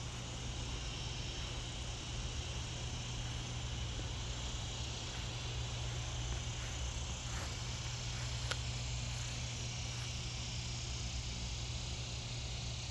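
Evening chorus of crickets: a steady high-pitched trilling, with a low steady hum underneath.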